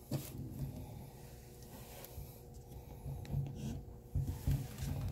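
Faint rubbing and scraping with a few soft knocks, over a faint steady hum.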